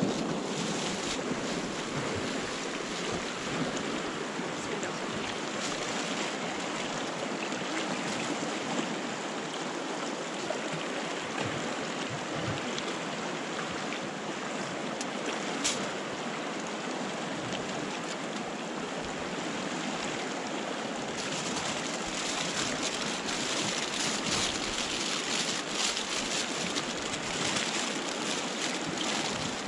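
Mountain river rushing steadily over stones. In the second half, aluminium foil crinkles as it is folded around the meat.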